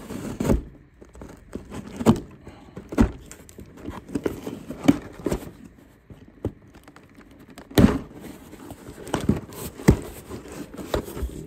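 Cardboard parcel being handled and opened: irregular knocks and thunks with rustling and crinkling of the packaging, the loudest knock about eight seconds in.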